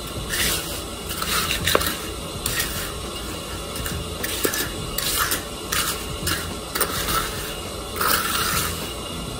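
Hand trowel scraping and smoothing wet concrete in repeated sweeping strokes, roughly one a second.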